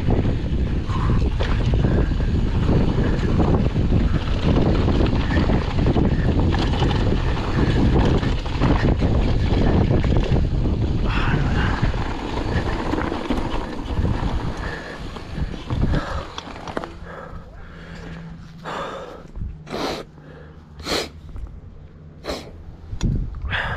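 Mountain bike descending fast on a loose dirt downhill trail: heavy wind on the microphone over tyre and rattle noise, easing off about two-thirds of the way through as the bike slows, then a handful of sharp knocks.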